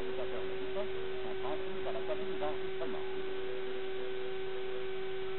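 A steady, unchanging hum at one pitch, with a few fainter high tones above it. Faint, indistinct voices sound under it during the first three seconds or so.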